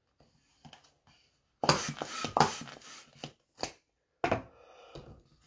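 Hand balloon pump inflating a 260 twisting balloon: a quick run of four or five strokes of rushing air, starting about a second and a half in, with one more stroke near the end.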